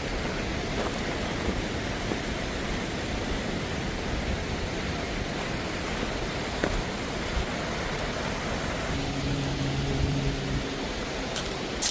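Steady rush of a flooded river. A faint low hum joins about nine seconds in and lasts a couple of seconds.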